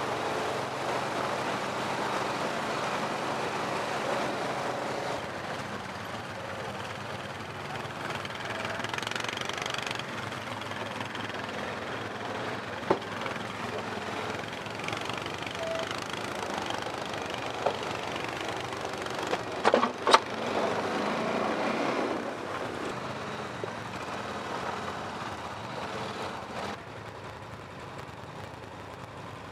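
ATV engines running as quad bikes ride through a shallow, rocky river, with water splashing under the wheels. A few sharp knocks stand out, the loudest cluster about twenty seconds in.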